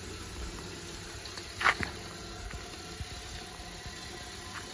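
Hyundai hatchback's engine running as it is driven slowly across a dirt lot, a faint steady hiss and low rumble, with one brief higher sound about a second and a half in.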